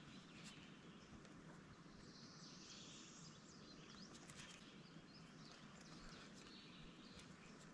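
Near silence: faint outdoor ambience with a few faint, short bird chirps.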